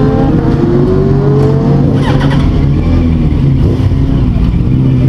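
Racing motorcycle engines running and accelerating over a steady low engine drone, with a pitch that rises over the first two seconds and rises again near the end.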